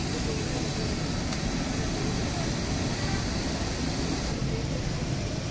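Potato fries deep-frying in a large wok of hot oil, a steady sizzle, over a low rumble of street traffic.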